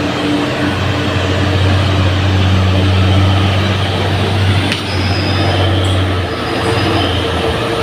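Heavy diesel trucks passing close by, their engines running with a steady low drone. A short sharp click about four and a half seconds in.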